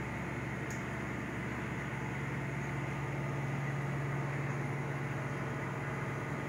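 Steady low hum with an even hiss from a reef aquarium's running equipment.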